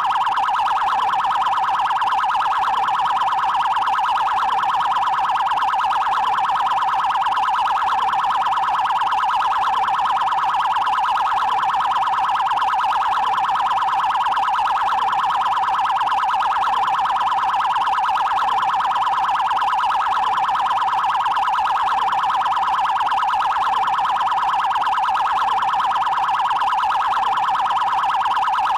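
Brazilian Federal Highway Police (PRF) electronic siren sounding its 'trail' tone: a rapid, even warble held around one pitch, continuous and unchanging.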